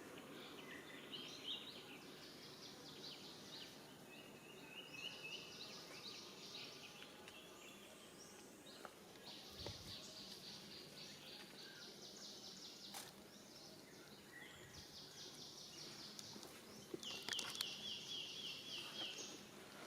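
Outdoor ambience with repeated high, rapid chirping trills, several overlapping, over a faint low hiss, with a few brief clicks.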